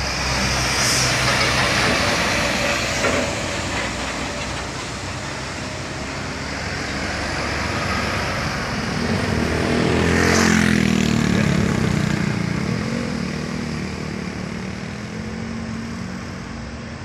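Heavy road vehicles passing close by: a fuel tanker truck's diesel engine going past at the start, then a coach bus passing loudest about ten seconds in, its engine note falling as it goes by, over steady traffic noise.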